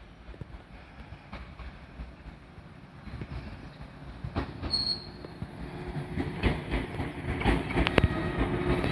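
JNR-built 115 series electric train of the Shinano Railway approaching and growing steadily louder. Its wheels click sharply and more often over the rail joints as it draws near, with a short high squeal about five seconds in.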